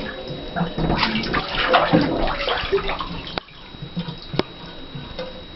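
Water sloshing and splashing in a filled bathtub as a person moves in it, with two sharp clicks about a second apart past the middle.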